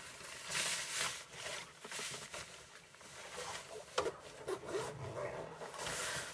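Swishing and rustling of a waterproof foul-weather jacket being pulled on and adjusted, with a sharp click about four seconds in.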